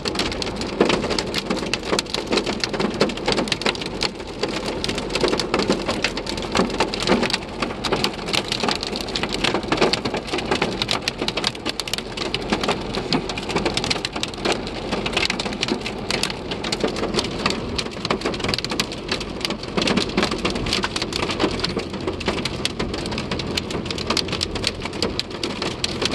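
Hail and heavy rain pelting a car's roof and windshield, heard from inside the car as a dense, fast, unbroken patter of hard hits.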